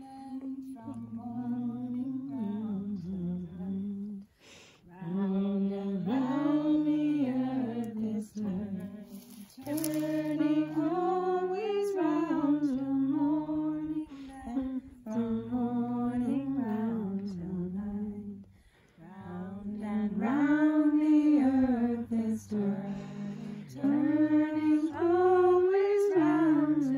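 A small group of voices, mostly women's, singing a slow circle song together without accompaniment, in long phrases with brief pauses for breath.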